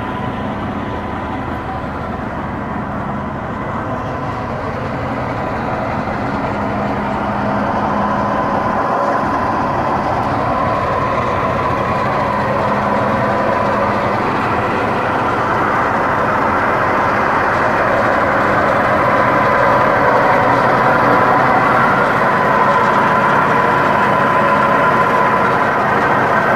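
Caterpillar 621F wheel tractor scraper's diesel engine running steadily, growing louder in the second half.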